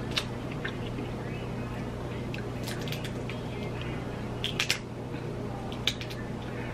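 Cooked crab shell being cracked and picked apart by hand: a few sharp snaps and clicks, with soft wet squishing of the meat in between.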